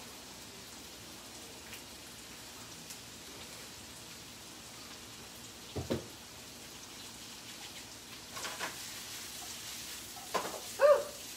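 Vegetables sizzling steadily in a frying pan. A soft knock comes about six seconds in, then a few light clatters, and a short pitched sound near the end is the loudest moment.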